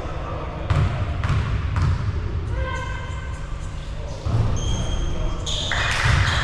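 Basketball bouncing on a gym floor in a large echoing hall, several uneven thumps, with voices in the background and a few brief high squeaks near the end.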